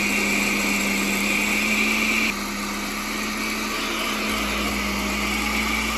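Countertop blender motor running steadily, grinding rolled oats into oat flour. Its level drops a little about two seconds in.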